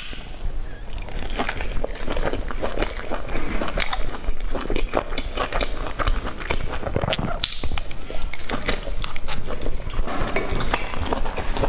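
Close-miked eating: a person biting into and chewing battered fried food in sauce, a rapid, irregular run of wet mouth clicks and smacks.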